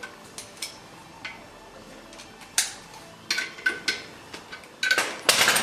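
Metallic clicks and clinks of a hand wrench working the ARP bolts of a Ford Pinto connecting rod cap held in a bench vise. Single clicks come at first, a few more about three seconds in, then a quick run of clicks near the end.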